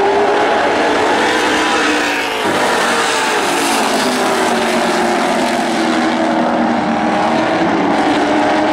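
A pack of NASCAR Late Model stock cars racing, their V8 engines running at high revs, with several engine notes overlapping and rising and falling as the cars pass. The level dips briefly a little over two seconds in.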